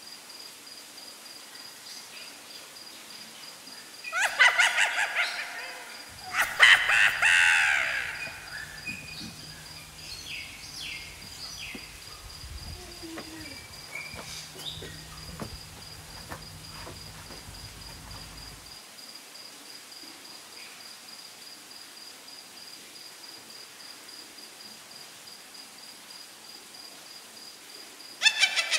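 Crow cawing: two bouts of harsh, repeated caws about four and seven seconds in, and another burst near the end.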